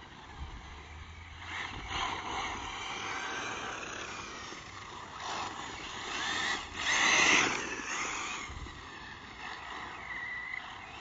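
Losi 8ight 1/8-scale brushless RC buggy with a Neu 1512 motor on 5S, driving: a high electric motor whine rising and falling with the throttle. It swells as the buggy comes near, loudest about seven seconds in.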